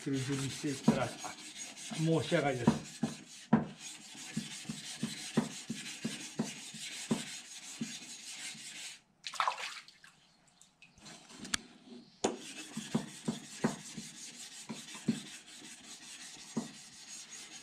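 A steel blade stroked back and forth on a wet natural Japanese whetstone: a gritty scrape about twice a second, pausing for a couple of seconds about nine seconds in.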